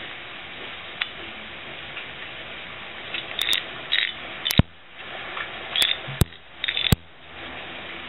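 Plastic Latch Pyraminx twisty puzzle being turned by hand: over a steady hiss, little at first, then from about three seconds in, short scraping rasps of the pieces sliding and several sharp clicks as the faces turn.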